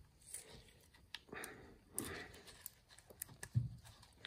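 Faint clicks and light knocks of a burnt jet-ski stator being worked loose by hand from its housing. The most noticeable is a soft low knock about three and a half seconds in.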